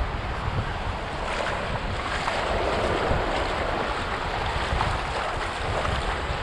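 Surf waves breaking and washing up the beach, with wind rumbling on the microphone; the wash swells louder about two and a half seconds in.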